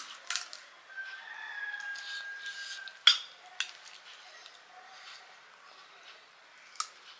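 A rooster crowing in one long, slightly falling call from about one to three seconds in. Around it come sharp crunches and clicks of crisp panipuri shells being bitten and handled, the loudest just after the crow ends.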